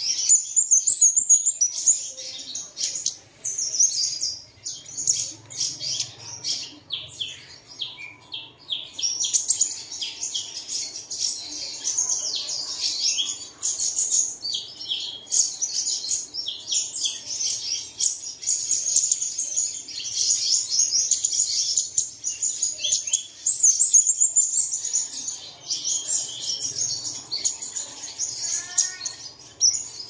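Male sunbird singing: a long, near-continuous run of high, rapid twittering notes.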